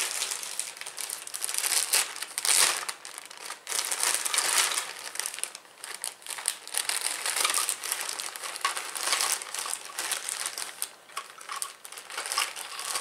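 Clear plastic zip-top bag crinkling in uneven spurts as it is handled and rummaged through by hand.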